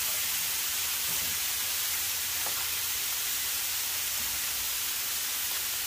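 Smash burger patties sizzling steadily on a hot Blackstone flat-top griddle.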